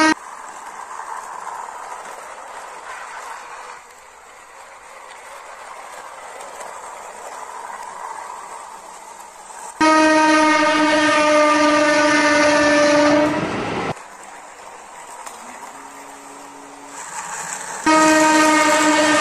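A steady, single-pitched train horn sounds loudly for about four seconds from about ten seconds in, starting and stopping abruptly, then sounds again near the end. Between the blasts is a quieter steady running noise from the toy electric train moving on its plastic track.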